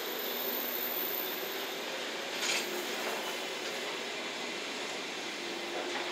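Loaded JNR Chiki 5500 rail-carrying flatcars rolling slowly past, a steady rumble and hiss of wheels on track, with one brief sharper noise about two and a half seconds in.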